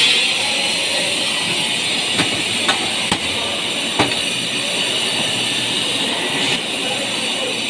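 A handful of sharp metallic knocks and clanks from metal framing channels and tools being handled, the loudest about four seconds in, over a steady high hiss of work-site background noise.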